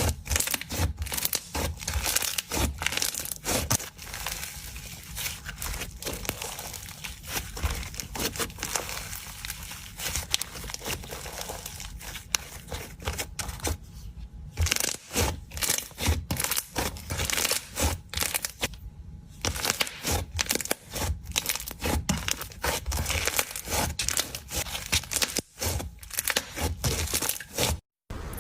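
Slime being squished and stretched by hand, giving a dense run of small crackles and pops with a few brief pauses.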